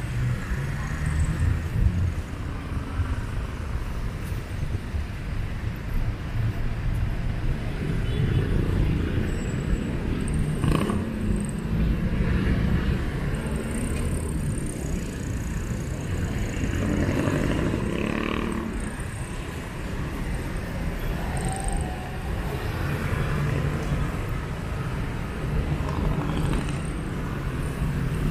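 Street ambience of road traffic: vehicle engines and tyres passing in a steady low rumble that swells as vehicles go by, with short high-pitched chirps now and then.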